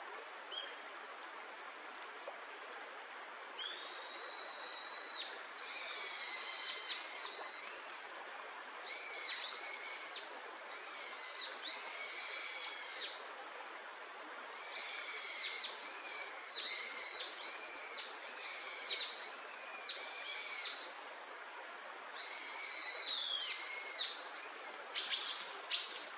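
A bird calling over and over in drawn-out, arched notes, each about a second long, with a few quick sharp notes near the end.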